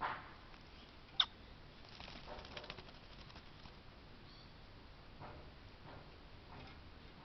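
A wattlebird bathing in a birdbath: scattered bouts of splashing and wing-fluttering in the water, with one sharp high click about a second in.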